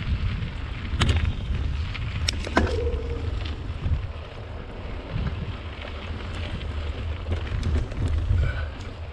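Mountain bike riding down a dirt singletrack: a steady rush of wind on the microphone over tyres rolling on dirt and leaves. The bike rattles over bumps, with sharp clacks about a second in and twice around two and a half seconds in.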